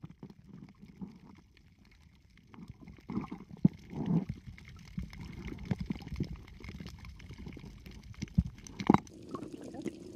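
Underwater sound picked up through an action camera's waterproof housing: a dull, muffled low rumble with scattered clicks and light knocks, nearly quiet for a moment about two seconds in.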